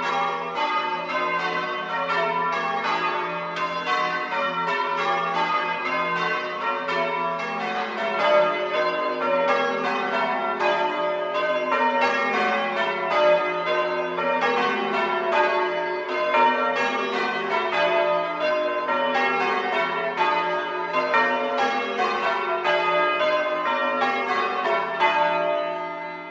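A ring of six church bells rung in English change ringing, struck one after another in a quick, even rhythm with their tones overlapping. Near the end the striking stops and the last notes ring on and fade.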